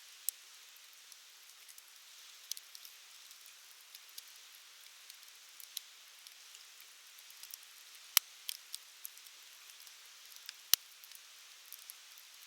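Firewood burning in an open fire: a soft steady hiss with scattered sharp crackles and pops, two of them much louder, about eight and eleven seconds in.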